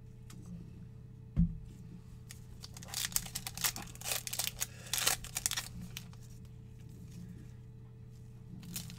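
Foil wrapper of a Panini Mosaic basketball card pack being torn open by gloved hands: a run of crinkling rips lasting about three seconds, from about three seconds in. It follows a single low thump about a second and a half in, over a steady low hum.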